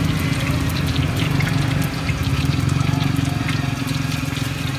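Hot oil sizzling and crackling in a frying pan where eggs are frying, over a steady low hum.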